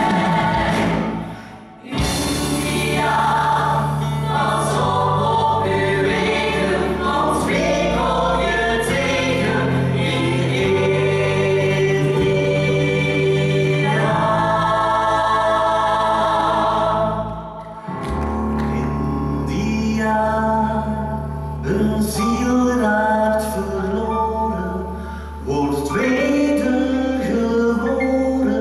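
Musical theatre cast singing together as a choir over a sustained bass accompaniment.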